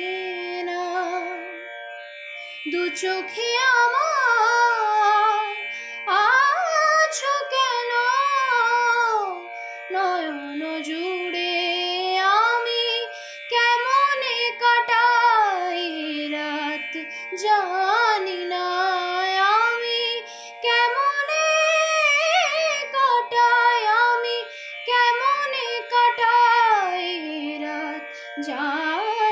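A woman singing a Bengali modern (adhunik) song solo, in long phrases with wavering, ornamented held notes. Under the voice a steady instrumental drone holds throughout.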